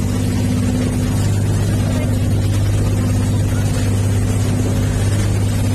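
Engine of a motorised outrigger boat (bangka) running steadily while underway, a loud, even drone that does not change.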